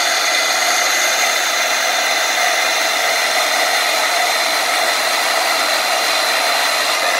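Bauer portable band saw running steadily, its blade cutting through a piece of wood as it is pushed in; a steady motor whine with a few constant high tones.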